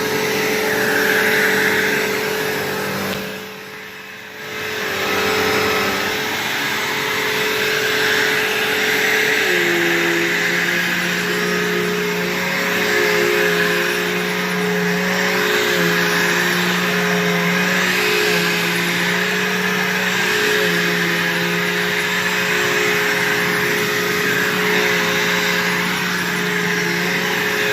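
Bissell PowerForce upright vacuum cleaner running steadily with a motor hum. It goes much quieter for about a second, three seconds in, then comes back to full.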